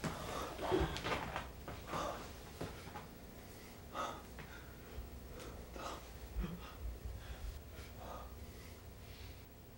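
A person's uneven breathing with sniffs and gasps at irregular moments, close to the microphone in a small room.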